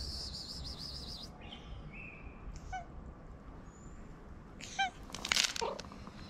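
Tabby cat giving a few short meows as it walks up, one a little before three seconds in and a louder one near five seconds, then a brief falling call. A bird trills in the background for the first second or so.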